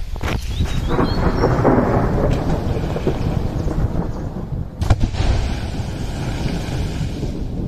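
An explosive charge thrown into the river for blast fishing goes off underwater about five seconds in: one sharp boom, then the splash and patter of the thrown-up water column falling back. A steady low rumble runs underneath.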